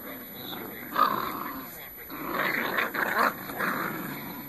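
A litter of puppies growling during tug-of-war play, with a short high yip about a second in and a busier run of growls in the middle.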